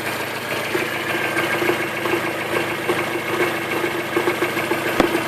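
Toyota 4E-FE 1.3-litre four-cylinder petrol engine idling with a metallic knock, a sound whose cause the owner cannot identify. A single sharp click sounds near the end.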